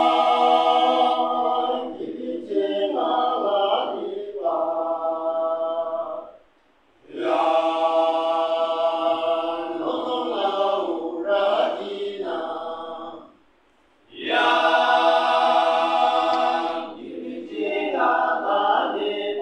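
Male choir singing unaccompanied in three long phrases, each broken off by a short pause for breath.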